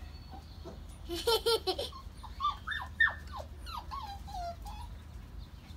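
A toddler giggling in a short burst about a second in, followed by a run of short, high squeaks that each fall steeply in pitch, the loudest about three seconds in.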